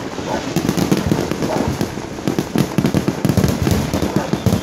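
Many aerial fireworks and firecrackers going off at once: a dense, unbroken barrage of overlapping bangs and crackles.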